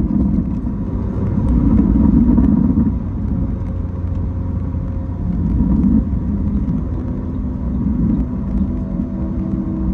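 Road vehicle under way: steady low engine and road rumble that swells and eases a few times.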